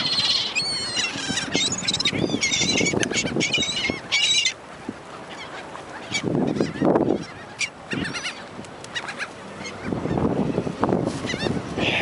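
Seagulls squawking, many calls overlapping, thickest in the first four seconds and again near the end. A low rushing sound swells and fades a few times between.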